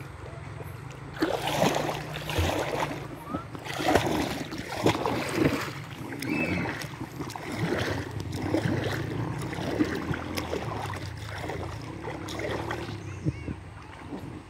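River water splashing and sloshing close by in irregular bursts, starting about a second in, as inner tubes are paddled along by hand.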